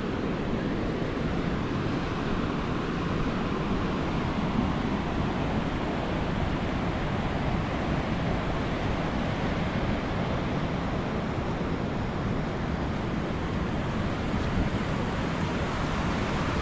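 Pacific surf breaking on a wide, flat sandy beach, a steady even rush of waves with wind on the microphone.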